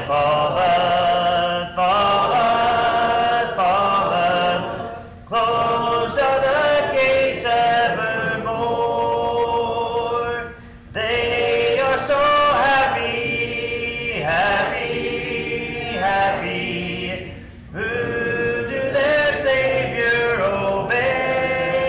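A congregation singing a hymn together a cappella, many men's and women's voices with no instruments, in sung phrases broken by short pauses for breath.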